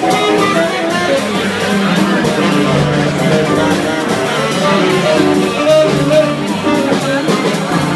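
Live jazz from a small combo: saxophone, electric guitar and upright bass playing together, the melody lines shifting from note to note.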